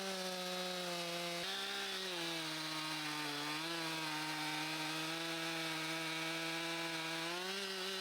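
Gas chainsaw running at high speed, cutting an oak log. Its steady engine note sags slightly in pitch a couple of times as the chain takes load.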